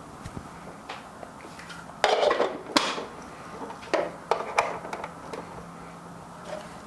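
Plastic bean hopper being set onto a conical burr coffee grinder and twisted into place: a series of knocks and clicks, a cluster about two seconds in and a few more about four seconds in.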